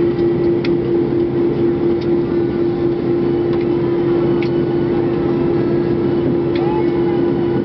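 Steady cabin noise of a jet airliner rolling down the runway just after touchdown, its spoilers raised, with a constant low hum running through it and a few faint rattles.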